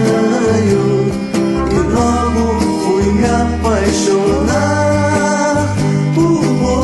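Recorded 1960s Brazilian pop-rock song with a stepping bass line, guitar and a voice singing over the band.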